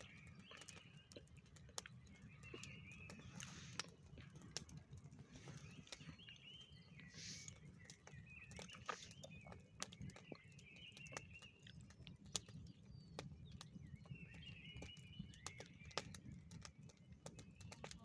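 Brushwood campfire of dry twigs and branches burning, crackling and popping with frequent sharp snaps, over a low steady rush of flame. Birds sing short chirping phrases in the background throughout.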